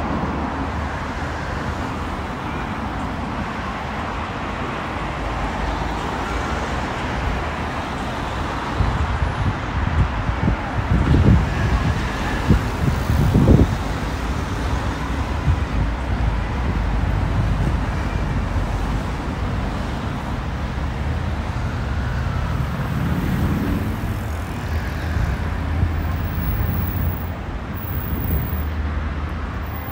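City street traffic: a steady hum of cars and roadway noise from a wide road, with a few short low bumps near the middle.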